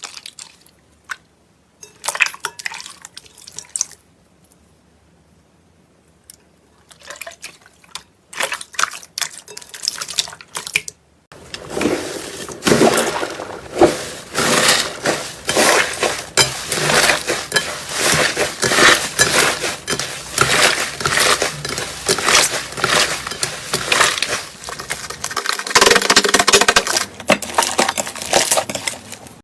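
Slime being squished and worked by hand, making quick clicking, popping sounds: two short bouts, then continuous squishing from about eleven seconds in.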